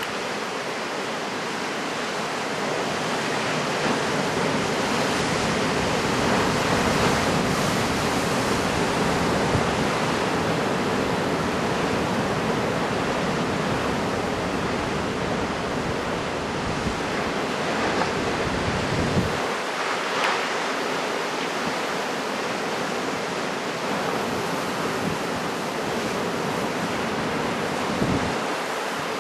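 Large typhoon-swell waves breaking as surf, a steady rush of noise, with wind buffeting the microphone and adding a low rumble that drops away about two-thirds of the way through.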